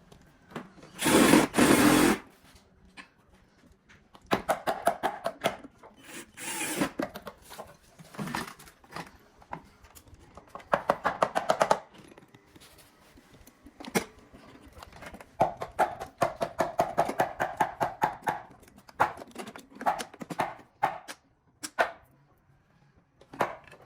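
Handwork on an assembly line: several runs of quick clicking and rattling, with knocks between them, and a loud burst of hiss lasting about a second near the start.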